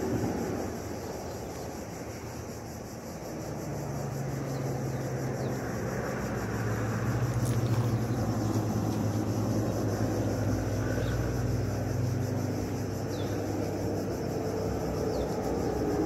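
A steady low engine drone that swells about four seconds in and holds, with insects buzzing faintly above it.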